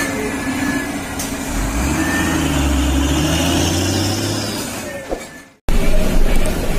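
Heavy truck engine running steadily, fading out about five seconds in; after a brief silence a different rumbling vehicle sound cuts in.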